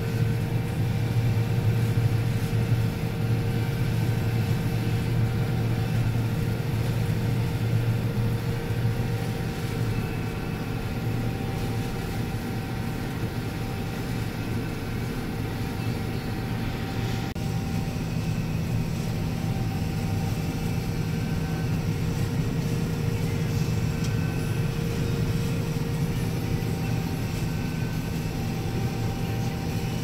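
Combine harvester running steadily while cutting soybeans, heard from inside the cab: a constant low drone with a couple of steady humming tones above it.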